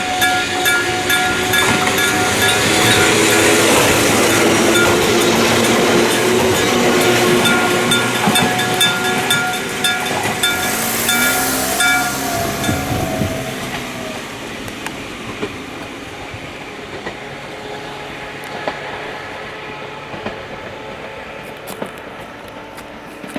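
Electric level-crossing bell, an aluminium-alloy bell struck over and over, clanging while a train passes over the crossing with a broad rush of wheel and rail noise. The bell stops about halfway through, and the train's noise then fades away.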